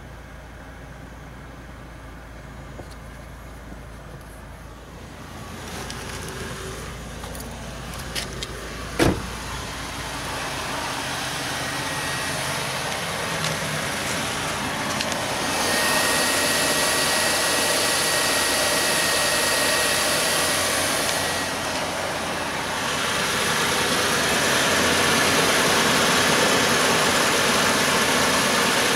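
Ford Taurus V6 idling steadily just after an oil change. It is fainter at first, then louder and hissier from about sixteen seconds in. There is a single sharp thump about nine seconds in.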